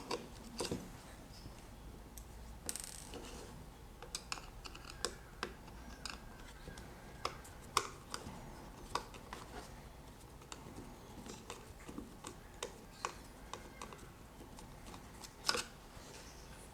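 Scattered light clicks and taps from small parts of an earphone remote control being handled at close range, irregular and a few seconds apart at most, over a faint steady hum.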